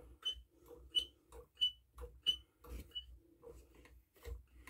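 Primer bulb on a Homelite gas chainsaw being pumped by thumb, a faint click and short squeak with each press, about one press every two-thirds of a second. The bulb is being tested to see if it primes; the owner guesses the fuel lines have been fitted the wrong way round on the carburettor.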